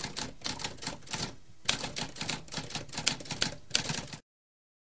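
Typewriter keys being struck in a quick, clattering run of clacks. There is a brief pause about a second and a half in, and the typing cuts off abruptly near the end.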